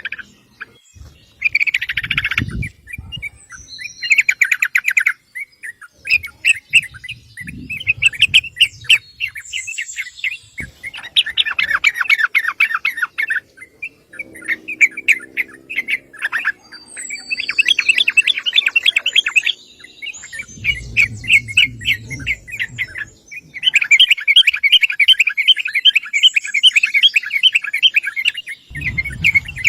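Yellow-vented bulbul calling in repeated bursts of rapid chattering notes, each burst lasting a second to a few seconds.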